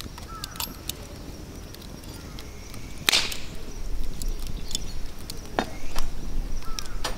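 Wood fire crackling in a campfire grill, with scattered sharp pops of burning pine and one louder noisy burst about three seconds in. A low rumble joins in after about four seconds.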